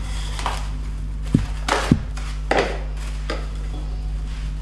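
Hands working pierogi dough on a kitchen counter: about six scattered knocks and thumps, over a steady low hum.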